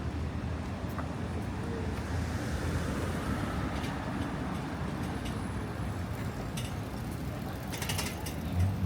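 City street ambience: a steady low rumble of distant traffic with scattered light clicks and taps. A short, louder thump comes near the end.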